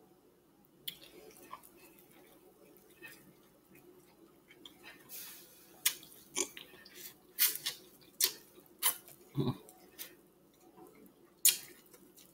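Close-up mouth sounds of eating buttery corn on the cob: soft chewing at first, then a run of sharp, wet lip smacks and chews through the second half, the loudest near the end.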